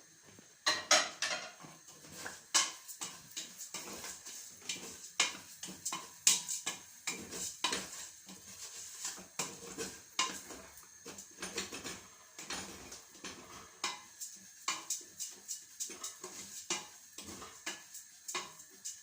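Metal kitchen utensils clinking and knocking against pots and dishes in a busy, irregular run of sharp strikes.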